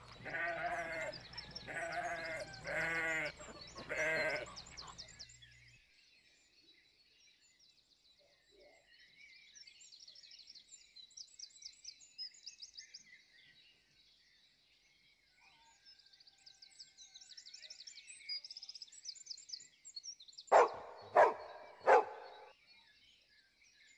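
Livestock bleating about four times in the first few seconds. Faint, quick bird chirps follow, and three more short, loud bleats come near the end.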